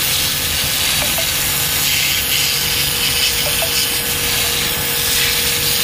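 High-pressure car washer running: a steady hiss of the water jet striking soil, with a steady motor whine held under the spray.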